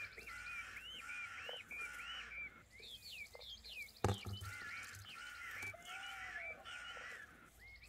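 Birds calling: short whistled chirps that sweep up and down, two or three a second, broken by a brief pause, with one sharp knock about four seconds in.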